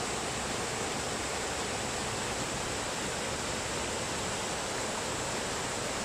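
A waterfall: falling water rushing in a steady, unbroken hiss.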